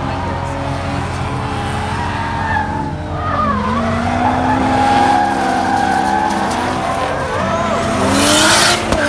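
Drift cars' engines revving hard at high revs, their pitch rising and falling as the cars slide through the course, with tyres squealing. A loud rushing burst of tyre noise comes near the end.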